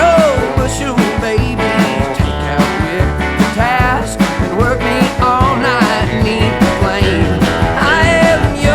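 Country song playing: a voice singing over guitar and a steady drum beat.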